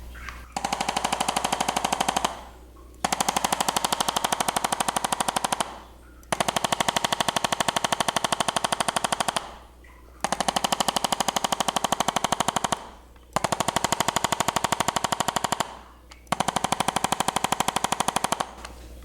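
Percussive massage gun hammering in six bursts of about two to three seconds each, a rapid, even stream of taps with short pauses between bursts.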